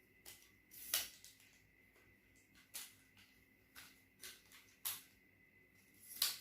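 Scattered light clicks and rustles of handling, about six short ones at uneven gaps, the sharpest about a second in and again near the end.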